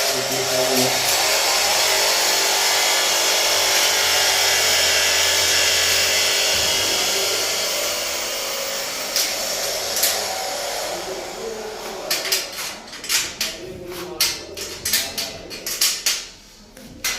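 A handheld power tool runs with a steady high-pitched whine for about the first nine seconds, then winds down. Sharp metal clacks and knocks follow as the cable tray parts are handled.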